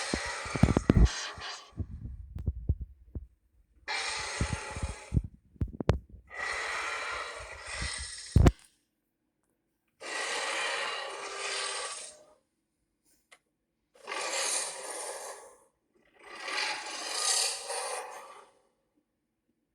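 Varan's roar, the film monster's sound effect: a string of harsh, raspy, breath-like calls, each one to two seconds long with short silences between them. Low thumps and crackle sound under the calls for the first half.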